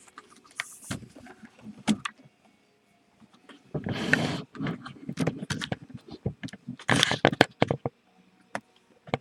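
Rustling handling noise and scattered sharp clicks: a camera being moved about and laptop keys and touchpad being clicked. There are two longer, louder stretches of rubbing about four and seven seconds in.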